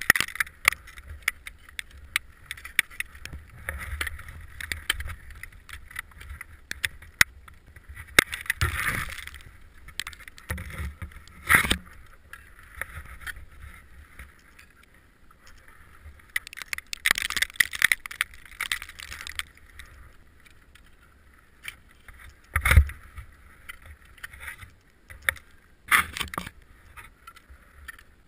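Ice axe and crampons striking and scraping on snow and ice over rock as a climber moves up, with climbing gear clinking. There are many small clicks, a few heavier strikes and a few stretches of scraping.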